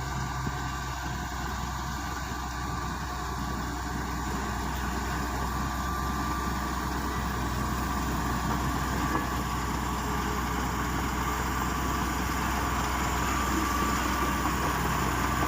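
Komatsu D85PX bulldozer's diesel engine running steadily, a constant low hum that grows slightly louder toward the end.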